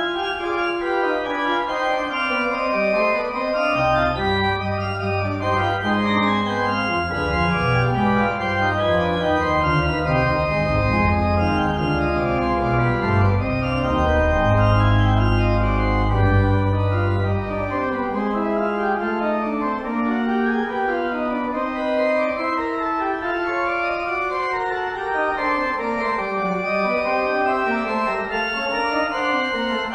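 Organ music: several lines move over sustained chords, with deep bass notes coming in about four seconds in and dropping away a little past halfway.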